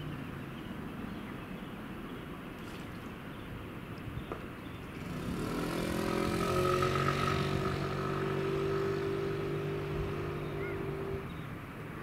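A motor vehicle's engine passing by: it grows louder about five seconds in, holds a steady drone, then fades near the end, over a steady outdoor background hiss.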